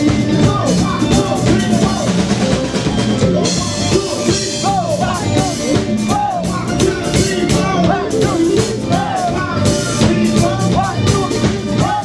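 Live band music played loud: a drum kit keeps a steady beat under guitars and accordion, with a lead voice singing over it.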